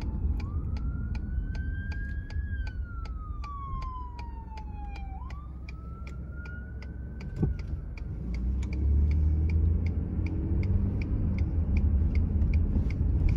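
An emergency vehicle's siren wailing, rising and falling and rising again over the first six seconds, heard from inside a moving car. Under it run the car's engine and road rumble, louder from about eight seconds in, and a steady ticking at about two or three clicks a second.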